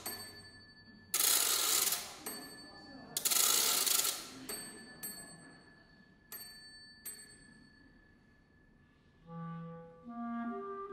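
A sparse passage of contemporary chamber music: two bursts of hissing noise about a second long each, then a few light clinks that ring briefly. Near the end, held low clarinet and string notes come in.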